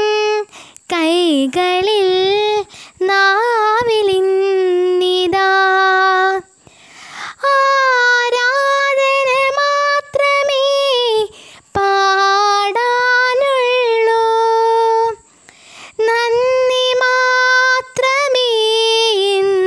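A girl singing a Malayalam Christian devotional song unaccompanied, in long held and ornamented notes, with short breath pauses between phrases.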